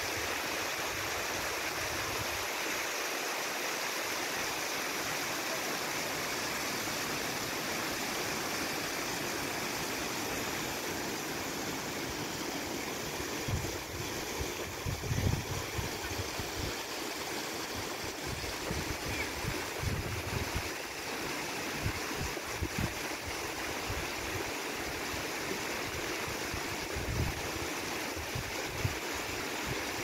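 River water rushing steadily. From about halfway there are irregular low gusts of wind buffeting the microphone.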